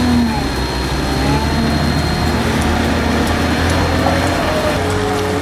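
Heavy diesel engine of a Volvo loader running steadily while it works, with a low hum and faint tones that shift a little in pitch.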